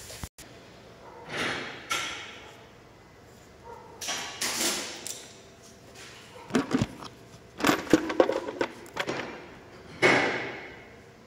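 Scattered knocks, clicks and rustling, as of a phone being handled and moved about near the engine, with a quick run of sharp clicks about two thirds of the way through.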